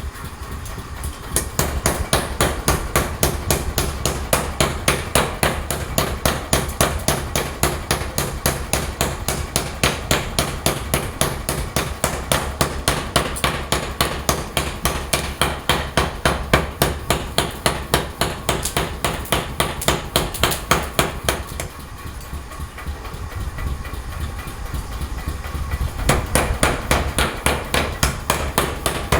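Hammer striking iron in a fast, even rhythm of about four blows a second, the blows lighter for a few seconds about three-quarters of the way through. A steady low hum runs underneath.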